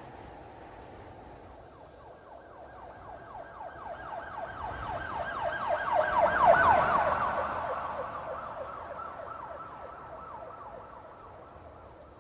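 Police car siren in a fast yelp, sweeping rapidly up and down about four times a second. It grows louder to a peak a little after the middle, then fades away.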